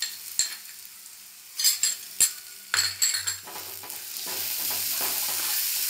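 A metal spoon clinks and scrapes against a glass bowl as chopped ginger and garlic are tipped into a pan of onions frying in coconut oil. A wooden spatula then stirs the pan, and the sizzling grows louder and steadier about four seconds in.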